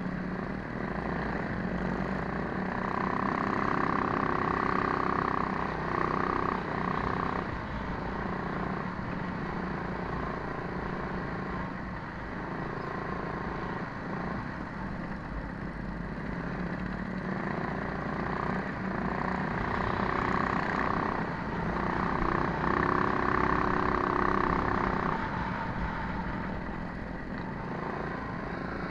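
Coleman minibike's small single-cylinder four-stroke engine running hard under the rider, its pitch rising and falling with the throttle. It climbs to a high steady pitch for a few seconds early on and again for several seconds in the second half. Other minibike engines are running close by.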